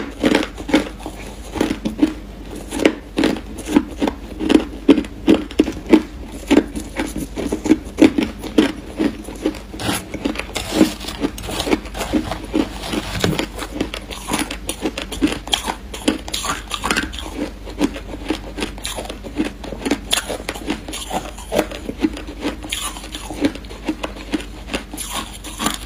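Crushed ice being chewed right at a clip-on microphone: a steady run of sharp, crisp crunches, about two or three a second.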